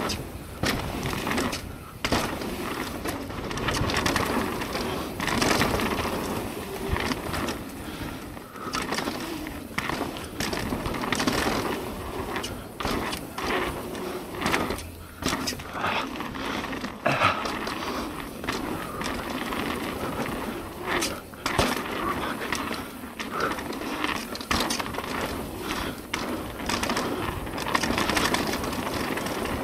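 Mountain bike rolling along a dirt trail: tyres running over the ground with a steady noise, and frequent knocks and rattles as the bike goes over bumps.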